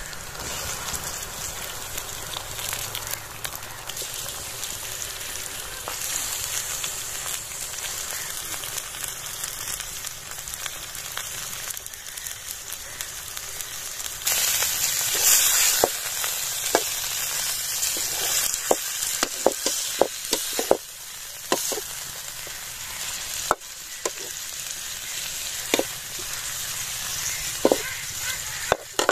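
Raw chicken pieces sizzling as they fry in hot oil with browned onions and garlic-ginger paste in a steel pot, the sizzle growing louder about halfway through. In the second half a steel ladle stirs, knocking against the pot a dozen or so times.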